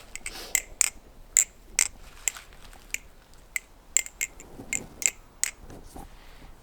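Balisong (butterfly knife) being flipped: a string of sharp, irregular metallic clicks, about two or three a second, as the handles swing and knock against each other and the tang pins.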